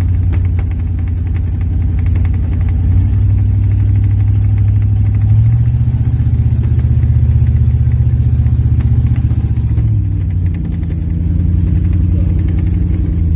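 1993 Ford F-150 pickup's engine running under load as it drives through a flooded field; the revs rise about five seconds in, hold, and drop back about ten seconds in.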